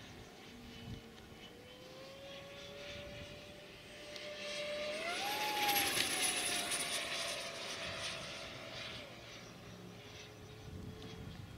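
The 70 mm, 14-blade electric ducted fan of a JP MiG-15 RC jet whines as the model flies a pass. The pitch climbs and the sound swells to its loudest about halfway through, then the whine drops in pitch and fades as the jet moves away.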